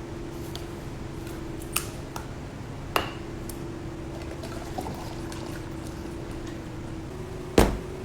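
A steady mechanical hum, with a few sharp clicks or knocks, the loudest one near the end.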